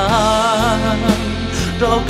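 Music: a Hmong pop song with a steady beat under a wavering lead melody line.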